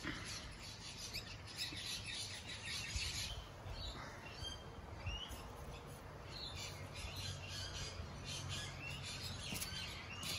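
Small birds chirping in short runs of quick, high calls. A faint low hum joins about six seconds in.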